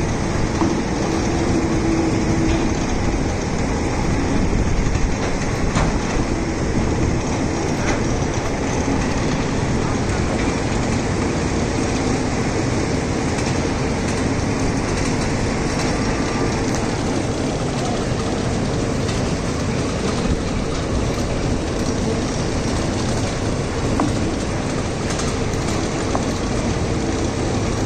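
Quarry gantry crane running with a stone block slung from its hoist: a steady mechanical running noise with a faint steady hum.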